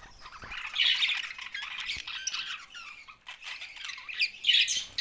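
Several budgerigars chattering together: a dense stream of overlapping chirps, warbles and squawks, loudest about a second in and again near the end.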